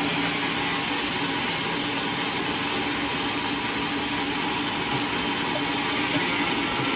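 An engine idling steadily: a constant drone with a low hum under it, unchanging throughout.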